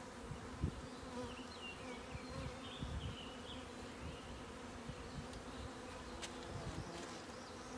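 Many honeybees buzzing around an open hive, a steady low hum from bees just shaken in from a package.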